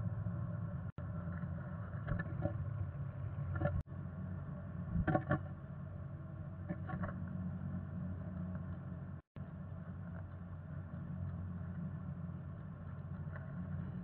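Black-capped chickadee shifting and settling on her eggs in a nest cup of moss and hair, making brief soft rustles a handful of times over a steady low hum. The sound cuts out completely for a moment about three times.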